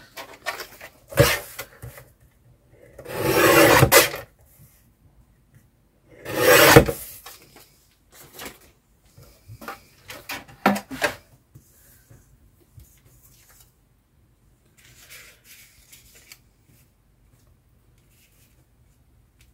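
Christmas card being trimmed: two loud strokes of about a second each, around three and a half and six and a half seconds in, with a few sharp clicks and light paper rustling between them.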